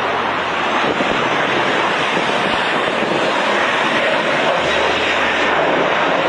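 Airliner engines running, a steady loud rushing noise with a faint low hum beneath it.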